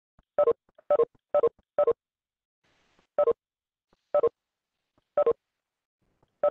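A video-call app's short two-pip notification beeps, sounding about eight times at uneven intervals as participants leave the meeting.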